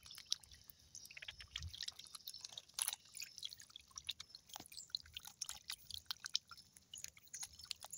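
Faint, irregular small splashes, drips and ticks from a crowd of lambaris (small tetras) thrashing in the shallow water at the edge, some wriggling out onto the wet sand to feed on crackers.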